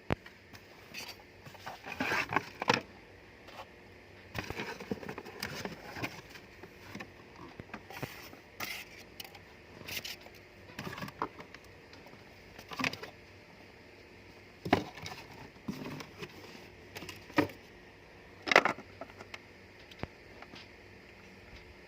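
Packaging being handled and opened: irregular rustles, scrapes and short knocks, a few of them sharper and louder.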